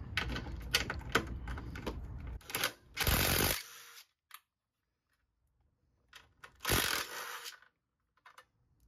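DeWalt cordless impact driver backing out 12 mm bolts: rattly clicking for the first couple of seconds, then two short, loud bursts of hammering, about three seconds in and again about seven seconds in.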